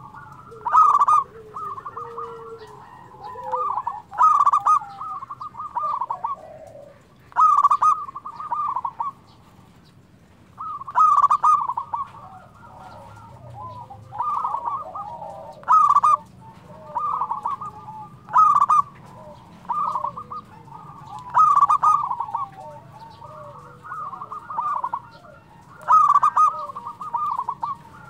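Zebra dove (perkutut) cooing: short staccato cooing phrases repeated about every one and a half to two seconds, with one longer pause partway through.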